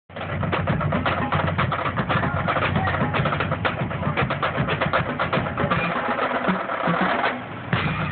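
Percussion group drumming outdoors, a dense run of fast, sharp drum strokes, with a brief lull about seven seconds in before the drumming picks up again.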